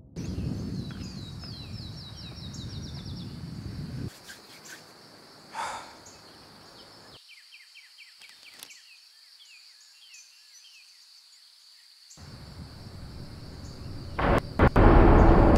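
Outdoor night ambience: a steady high insect drone with runs of quick repeated chirps, over a low rumble that stops about four seconds in. A louder rushing noise comes up near the end.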